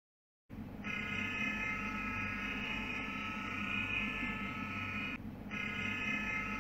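Three-phase electric motor running: a steady low hum with a high whine, starting abruptly about half a second in. The whine drops out briefly about five seconds in.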